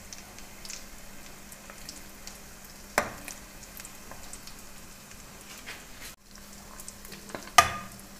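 Breaded chicken-and-cheese croquette balls shallow-frying in hot oil: a steady sizzle with fine crackles. A metal spatula clinks against the pan twice, about three seconds in and near the end.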